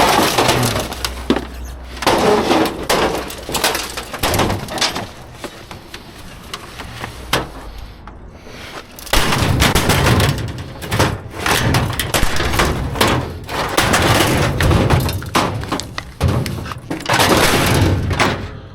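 Junk being pulled out and tossed about inside a dumpster: an irregular run of clattering and crashing, with breaking glass among it, busier and louder in the second half.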